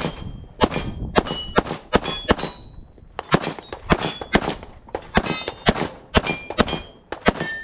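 Rapid pistol shots on a timed stage, about nineteen in seven seconds in quick strings with short pauses. Most are followed by the ring of steel targets being hit.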